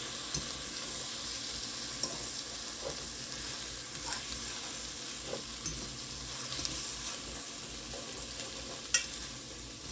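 Scrambled eggs with chopped steak and bell pepper sizzling steadily in a Dutch oven, with a few sharp clicks of a utensil against the pot as they are stirred.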